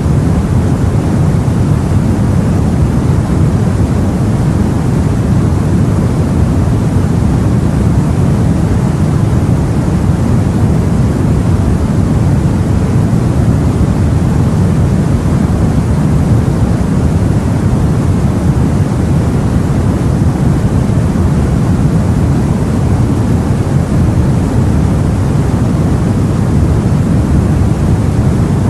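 Sea ambience: a loud, steady, deep rushing noise with no separate wave crashes or other events.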